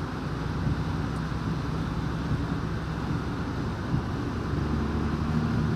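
A vehicle's engine running steadily with a steady rushing noise as it drives slowly through floodwater about half a wheel deep.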